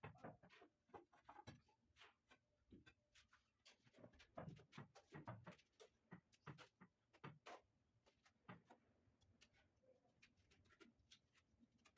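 Faint, irregular taps, knocks and scrapes of a mason handling a marble stair slab and mortar as he lays a marble stair tread.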